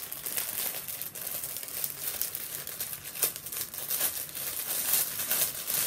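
A thin clear plastic bag crinkling and crackling as it is pulled open by hand, in a run of irregular rustles.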